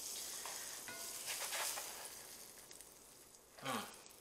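Butter sizzling in a hot cast iron skillet under a grilled cheese sandwich, dying down over a few seconds. A brief low voice sound near the end.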